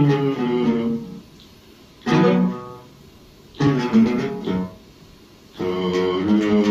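Oud playing a melody: a sustained phrase that breaks off about a second in, then two short plucked phrases, each followed by a pause of about a second, and a sustained phrase that resumes near the end.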